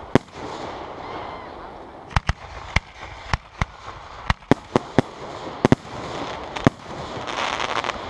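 Aerial firework shells bursting overhead: about a dozen sharp bangs at uneven intervals, some in quick pairs. Near the end comes a dense spell of crackling.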